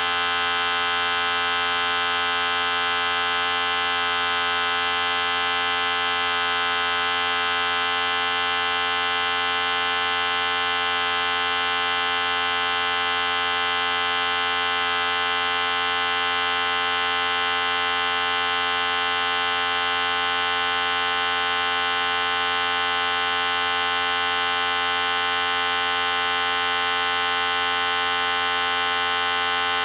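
Electric hair clippers running continuously: a steady, even buzz that does not change.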